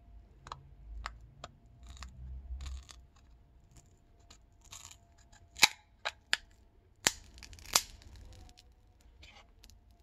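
Plastic pry tool clicking and scraping against a Nokia 7.2's battery and frame as the glued battery is levered out. There are a few light clicks and short scrapes, then several sharp snaps between about five and eight seconds in.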